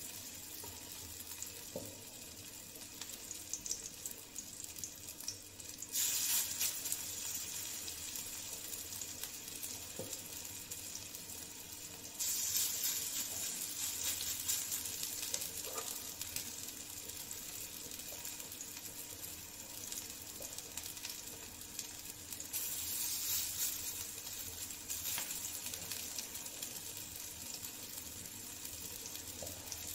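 Potato-soya tikki patties sizzling in oil on a hot flat griddle (tawa). The sizzle jumps suddenly louder four times, as fresh patties of the wet mixture are laid on the hot oil.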